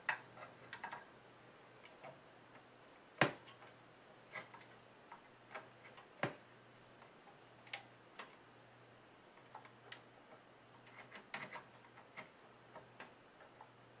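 Scattered, irregular faint clicks and taps of a graphics card's metal bracket and plastic shroud knocking against the PC case's rear slot openings and the motherboard as the card is eased into place. There is a sharper knock about three seconds in, another about six seconds in, and a quick run of clicks near the end.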